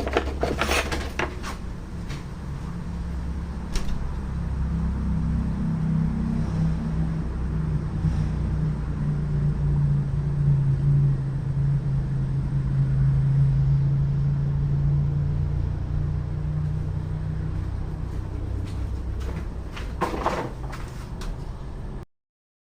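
A steady low motor hum swells in and fades away again, with a few knocks and clatters at the start and again near the end.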